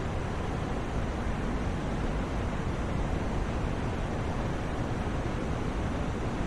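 Steady white noise for sleep: an even, unbroken hiss with most of its weight in the low end, never changing.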